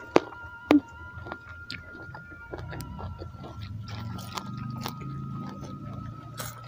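Close-up eating sounds: crisp bites and crunchy chewing of raw lettuce and fresh salad leaves, with two sharp crunches within the first second and softer chewing clicks after.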